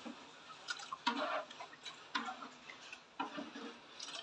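A utensil stirring a thin liquid mixture in a wok, with a scrape and slosh about once a second.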